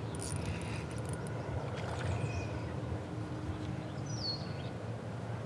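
Steady low rumble of wind and water on the river, with one short falling bird chirp about four seconds in.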